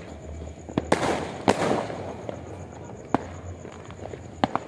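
New Year fireworks and firecrackers going off: a series of sharp bangs at irregular intervals, the loudest about one and a half seconds in and again about three seconds in, with two quick reports close together near the end.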